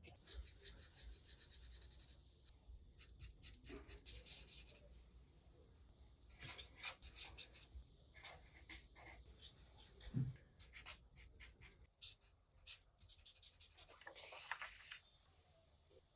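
Paper being worked by hand, with quiet scratching and rubbing strokes in quick runs. There is a soft thump about ten seconds in and a longer rustle near the end.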